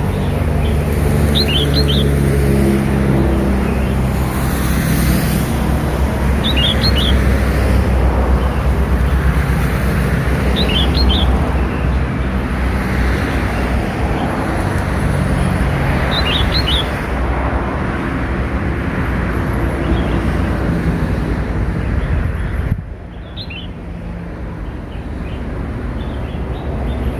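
Red-whiskered bulbul chick giving brief high chirps, one every four to six seconds, about five in all. They sound over a loud, steady low rumble that drops off abruptly about 23 seconds in.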